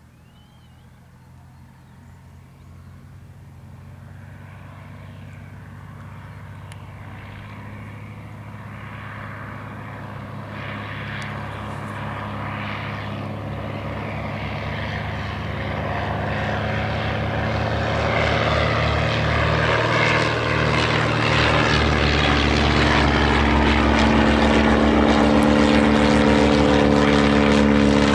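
Engines of two light propeller aircraft flying together, approaching and passing overhead. Their steady drone grows from faint to loud, and is loudest near the end.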